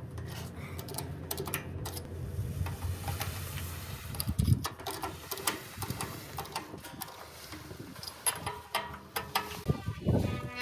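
Clicks, clanks and knocks of a hand-operated bench sheet-metal bending brake as a galvanized steel sheet is clamped and folded, with one louder knock about four and a half seconds in and a brief metallic ring near the end.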